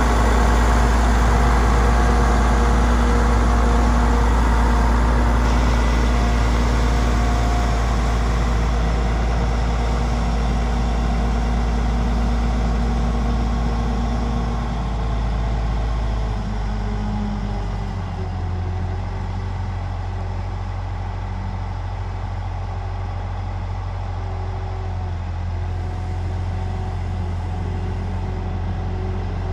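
Case IH 9370 four-wheel-drive tractor's Cummins N14 six-cylinder diesel idling steadily. About 18 seconds in, its tone shifts and it becomes slightly quieter.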